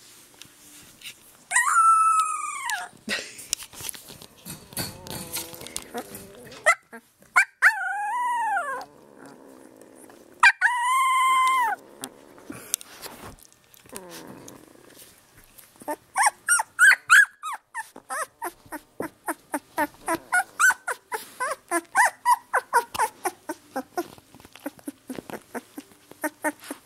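A young puppy crying for its mother: three long wails that rise and fall in pitch over the first twelve seconds, then a long run of short, quick whimpers, two or three a second.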